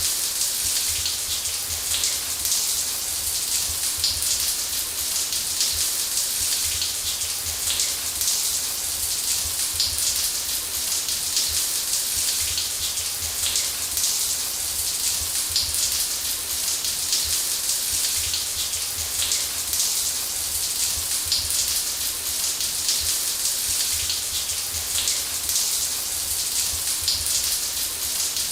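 Running shower: water spraying steadily from the showerhead and spattering, an even hiss with fine patter.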